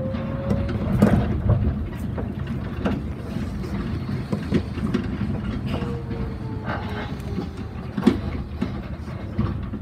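A rubber-tyred Yamaman Yūkarigaoka Line people-mover car running along its concrete guideway, heard from the front of the car: a steady running rumble with irregular knocks and clicks from the guideway, loudest about a second in and about eight seconds in. A faint motor whine rises in pitch at the start and falls again about six seconds in.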